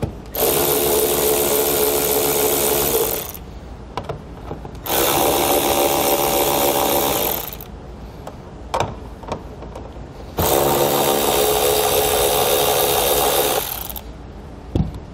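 Cordless drill-driver with a 7/16-inch socket spinning off the three nuts that hold a taillight, in three runs of about three seconds each, one per nut. Short clicks between the runs as the socket is moved to the next nut.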